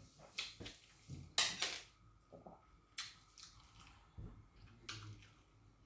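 Close-miked eating sounds: wet chewing and lip smacks over a mouthful of rice and vegetable stew, broken by a few sharp clicks about a second and a half in, at three seconds and near the end.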